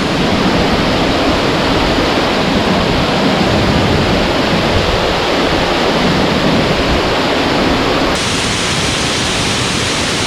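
Waterfall on a rain-swollen mountain creek, a loud steady rush of falling water; about eight seconds in the higher part of the sound drops away abruptly.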